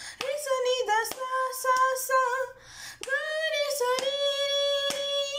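A girl's solo voice singing a Carnatic swarajati in Bilahari raga, moving through ornamented, gliding notes and holding longer notes, with a brief pause for breath about two and a half seconds in.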